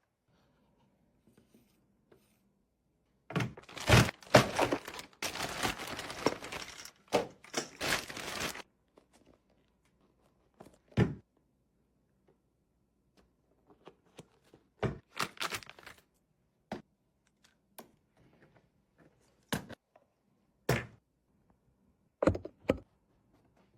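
Unboxing noises from an RC car's packaging being handled: about five seconds of dense rustling a few seconds in, followed by scattered knocks and thunks as parts are handled and set down.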